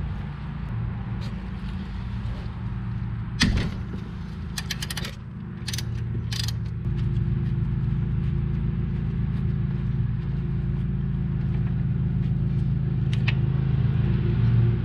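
Metal hand tools working a brake-line fitting on a car's rear brake: one sharp metallic clank about three and a half seconds in, then a quick run of clicks and a few scattered ticks. A steady low hum runs underneath.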